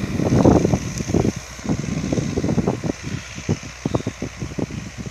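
MTZ-82 tractor's four-cylinder diesel running while it cultivates, a steady low hum under irregular low rumbles and thumps that are loudest in the first second.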